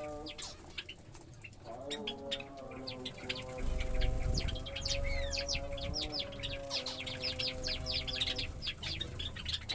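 A flock of small finches and Java sparrows chirping, a rapid run of short high calls that grows busier from about three seconds in.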